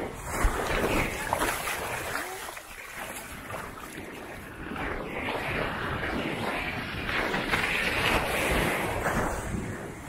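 Small waves breaking and washing up the sand at the water's edge, swelling in the first couple of seconds, easing off, then building again and strongest near the end, with wind rumbling on the microphone.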